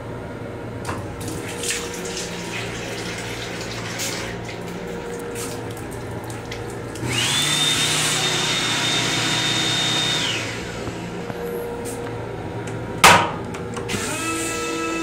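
Lavatory sink faucet on a commuter railcar running into the basin for about three seconds, with a high electric whine that rises as the flow starts and falls as it stops, over the steady hum of the train. A single sharp knock comes near the end.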